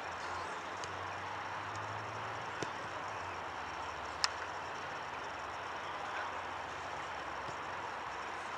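Steady outdoor background noise, with a single sharp knock about four seconds in and a few fainter clicks.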